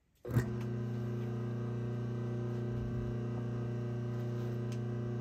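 Restored vintage Delco 1/3-hp split-phase electric motor switched on about a quarter second in: a sharp start surge, then it runs at speed with a steady electrical hum. It is starting properly, its centrifugal-switch contacts freshly cleaned.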